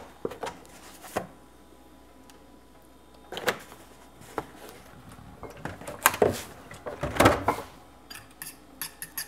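Kitchen handling sounds: a plastic gallon milk jug is knocked and handled as milk is added to a ceramic bowl of eggs and vegetables. In the last second or so a utensil clinks quickly against the bowl as the egg mixture is whisked.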